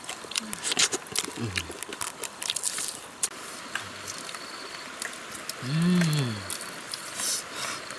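Close-up chewing and lip-smacking of people eating grilled fish by hand, with many small clicks that thin out after the first few seconds. Two short hummed vocal sounds that rise and fall in pitch, one about a second and a half in and a louder one near six seconds.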